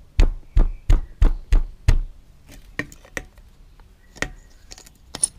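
The awl of a Swiss Army knife jabbing into the thin aluminium bottom of a drink can to punch a starter hole: about seven sharp knocks, roughly three a second, over the first two seconds, then lighter clicks and scrapes.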